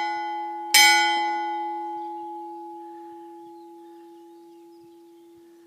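Traditional French church bell struck once about a second in, then ringing on with a steady low hum that slowly dies away; the ring of the stroke just before is still sounding at the start.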